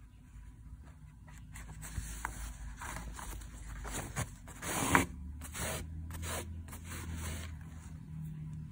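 Cotton fabric rustling and embroidery thread being drawn through the cloth as the hooped fabric is handled and turned over. The loudest rustle comes about five seconds in.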